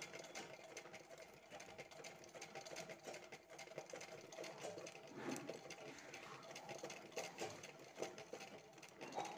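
Domestic sewing machine doing free-motion embroidery, its needle stitching fast and faint as it fills a flower petal with resham silk thread.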